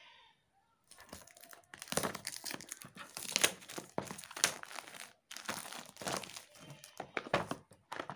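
Clear plastic shrink wrap on a small cardboard box being slit with scissors and torn off, a busy run of crinkling and crackling that starts about a second in, with a short break midway.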